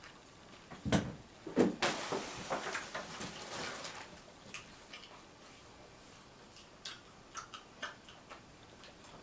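Fast-food sandwich packaging handled and unwrapped: a knock about a second in, then a couple of seconds of paper rustling, followed by scattered small clicks.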